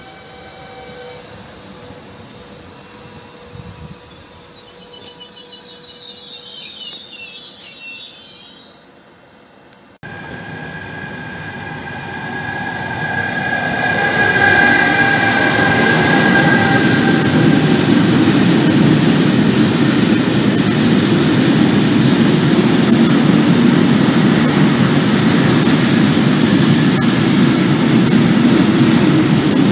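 A Pop electric multiple unit (ETR 104) passes through the station with a high, wavering wheel squeal for several seconds. About ten seconds in, an electric locomotive and a long freight train come up; the locomotive passes with a whine, and then the wagons roll past with a loud, steady noise.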